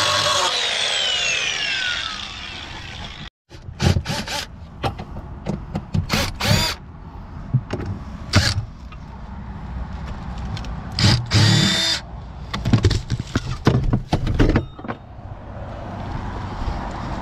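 An angle grinder's whine falls away as it spins down after a cut. Then a cordless Milwaukee impact driver rattles in several short bursts, the longest about a second, working the bolts of a boat seat's pedestal base plate to take the old seat out.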